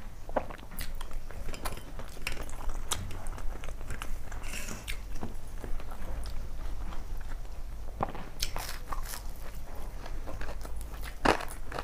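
A person chewing food close to a clip-on microphone: irregular wet mouth clicks and smacks, with a few louder clicks about eight and a half seconds in and a sharp one near the end.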